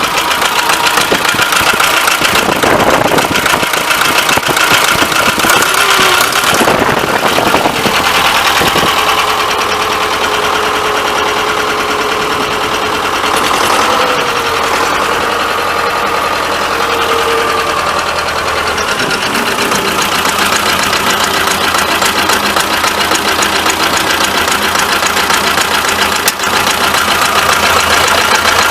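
Vladimirets T-25 tractor's two-cylinder air-cooled diesel engine running with a fast, even diesel clatter. Its speed shifts a few times in the first several seconds, then settles.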